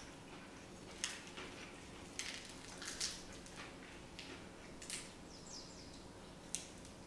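Thin pancake with a crispy edge crackling as it is torn apart by hand, a handful of sharp crisp crackles over a faint steady hum.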